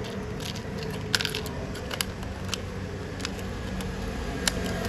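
Plastic drill-bit packaging being handled and opened: a few scattered sharp clicks and crinkles of stiff plastic, over a steady low hum.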